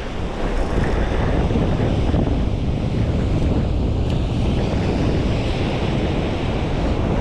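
Wind noise on the microphone, a steady low rumble, over the continuous wash of ocean surf breaking on the beach.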